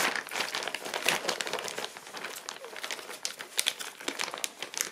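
Clear plastic packaging bags being handled, crinkling in quick, irregular crackles.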